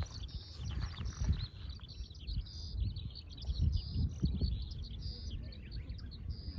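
Small birds chirping in a rapid, continuous stream of short calls, over a low rumble with irregular soft thumps.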